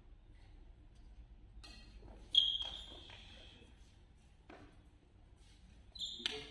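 Badminton rally: rackets strike the shuttlecock several times, each a sharp crack with a brief high ring of the strings, echoing in a large hall. The loudest hit comes about two and a half seconds in, and two more come close together near the end.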